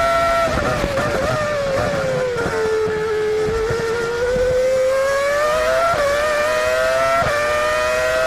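Minardi's Asiatech V10 Formula One engine heard onboard: near full revs, then braking with a run of quick downshifts about half a second in, low revs through a slow corner, and accelerating again with two sharp upshifts near the end.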